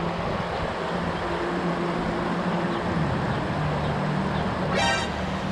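River water rushing over a shallow rocky riffle, with a steady low hum underneath. A brief rising squeak sounds near the end.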